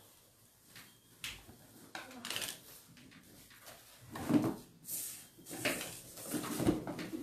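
Handling noises as folded clothes are gathered up and moved: cloth rustling with scattered clicks, and two louder dull knocks about four and six and a half seconds in.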